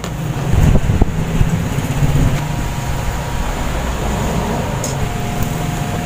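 Handling noise as a washing machine's plastic body panel is pressed back into place, with a couple of light knocks about a second in, over a steady low hum.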